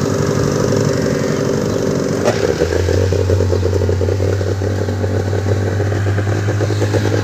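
A small engine running steadily, with a sharp knock a little over two seconds in, after which a deeper, stronger drone sets in.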